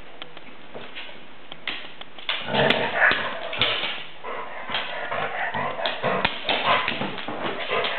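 A chocolate Labrador and a Chihuahua play-fighting, with dog barks and yips in quick, irregular bursts that start about two seconds in.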